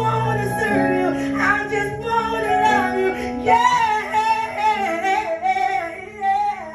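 Gospel music: a woman singing in long, bending phrases over held chords.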